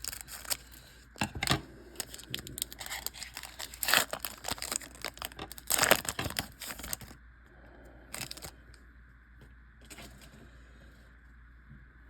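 Foil wrapper of a Pokémon trading-card booster pack crinkling and tearing open. Dense crackling for about seven seconds, loudest twice in the middle, then a few scattered crinkles.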